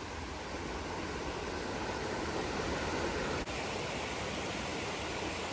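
Steady rushing of a creek's flowing water, growing a little louder, with a brief dip about three and a half seconds in.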